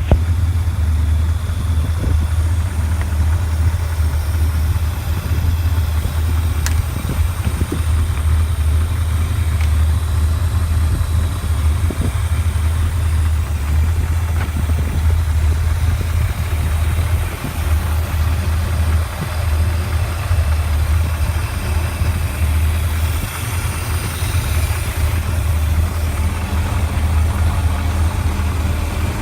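An old cabin cruiser's engine running steadily with a low, even tone.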